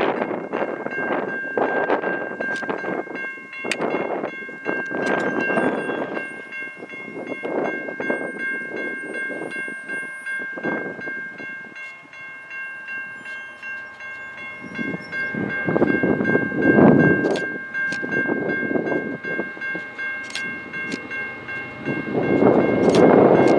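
A level crossing's low-tone Siemens electronic bell ringing steadily while the crossing signals flash and the gates come down. Gusts of wind hit the microphone, loudest about two-thirds of the way through and again near the end.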